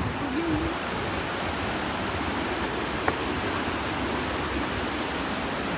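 Steady roar of Burney Falls' water, an even rushing noise with a single small click about three seconds in.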